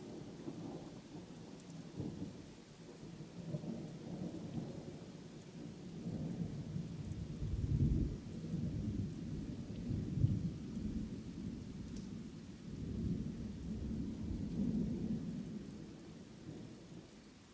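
Thunder rumbling in long, low rolls over steady rain. The rumble swells loudest about halfway through and again near the end.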